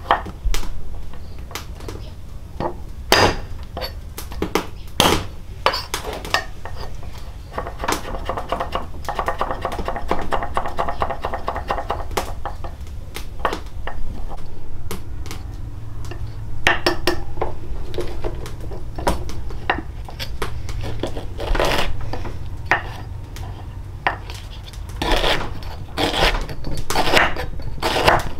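Dishes, pots and utensils clinking and knocking together in irregular strikes, with a busier run of clatter about a third of the way in.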